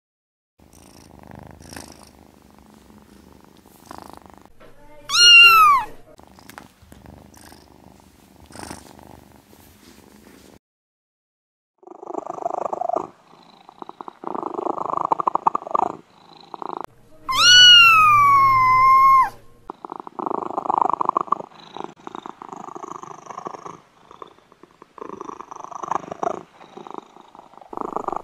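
Domestic cat purring in stretches, faint at first and louder from about twelve seconds in, with two meows: a short falling one about five seconds in and a longer one that rises and falls about seventeen seconds in.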